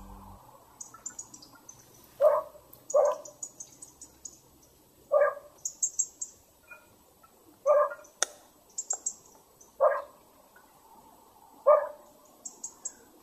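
Short animal calls repeating about every two seconds, with trains of quick high chirps between them and a single sharp click about eight seconds in.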